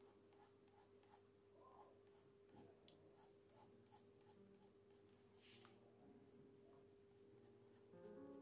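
Faint scratching of a Faber-Castell Art Grip colored pencil on paper, laid down in short repeated strokes a few times a second as hair-like marks. Soft music with held notes comes in near the end.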